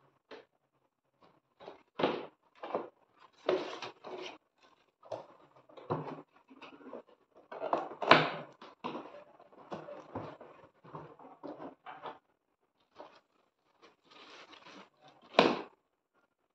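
A cardboard box and a plastic-wrapped solar street light being handled: irregular scrapes, rustles and knocks as the light is slid out of the box and stood up, with the sharpest knocks about halfway and near the end.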